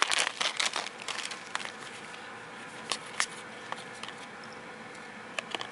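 Foil trading-card pack wrapper crinkling as it is peeled open, then a few sharp single clicks as the stiff cards are handled and flipped through.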